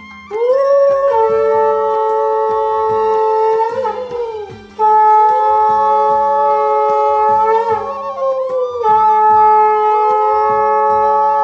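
A conch shell (shankha) blown in three long, loud blasts of about three to four seconds each, every blast sagging in pitch as it ends, sounded to close a Hindu puja.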